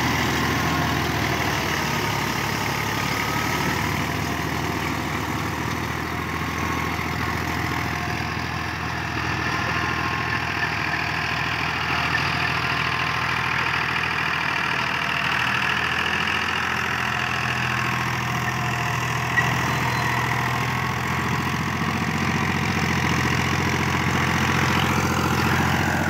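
New Holland Al-Ghazi tractor's diesel engine running steadily under load while driving a rotavator through the soil.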